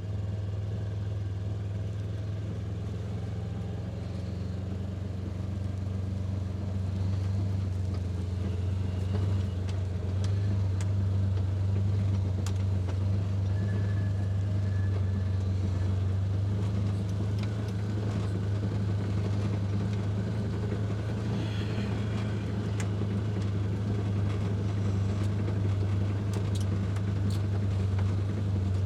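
Motor vehicle engine running steadily with a low hum while driving, a little louder from about seven seconds in, with a few light clicks and knocks over it.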